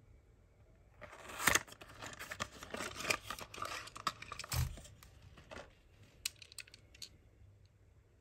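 A cardboard Tomica toy box being opened and the die-cast car taken out: scraping and crinkling of card and packaging from about a second in, with a dull thump a little past the middle, then a few light clicks as it is handled.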